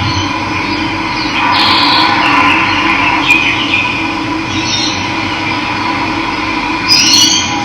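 Running water rushing steadily, with birds chirping over it in short high calls, clearest about a second and a half in and near the end.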